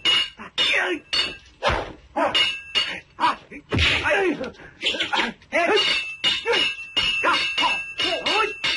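Kung fu film fight sound effects: a rapid series of sharp clacks and whacks from a wooden staff duel, about two hits a second. The fighters shout and grunt between the blows.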